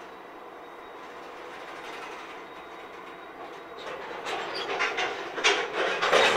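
Slow-rolling freight train: a steady rumble of the cars on the rails, then from about four seconds in a run of loud, irregular clacks as the wheels pass over rail joints, growing louder toward the end.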